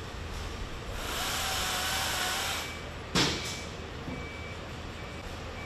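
Street noise around a working fire truck: a hissing sound with a faint whine swells for a couple of seconds, then a single sharp, loud burst of hiss about three seconds in.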